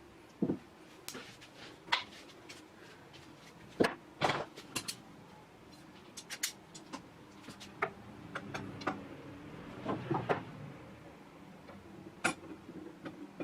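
Irregular knocks and clicks, several louder ones about four seconds in, over a faint low hum that swells around the middle.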